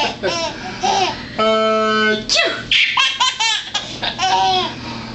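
A baby laughing in quick bursts of rapid, repeated pulses, with one steady held vocal note for under a second about a second and a half in.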